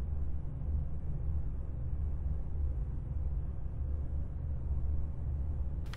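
A steady low rumble with a faint hum, and nothing sudden standing out.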